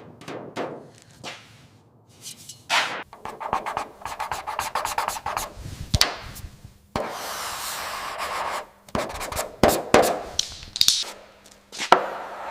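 Workshop hand work on metal: quick rubbing and scraping strokes, a few seconds of steady sanding, and several sharp knocks in between.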